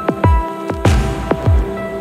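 Background electronic music with a steady kick-drum beat over held synth tones, and a brief cymbal-like swell about a second in.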